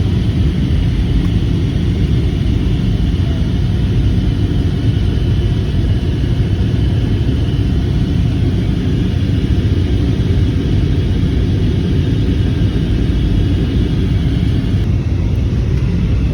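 Passenger airliner cabin noise: a steady, loud, low rumble of the engines and airflow. The higher hiss drops away near the end.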